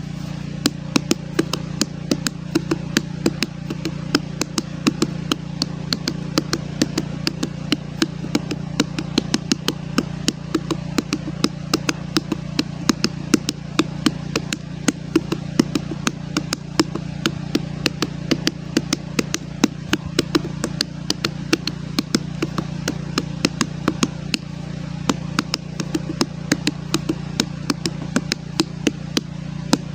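A watermelon drummed on, rapid uneven knocks a few times a second, with a steady low hum underneath.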